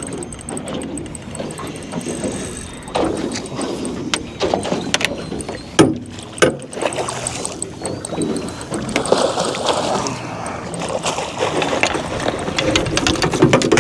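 Water splashing and irregular knocks against the boat as a big hooked flathead is brought in and landed, with one loud knock about six seconds in.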